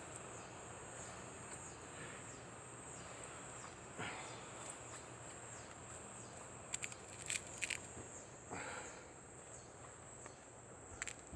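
Steady high-pitched insect chirring in the background, with a few faint clicks and handling noises scattered through it.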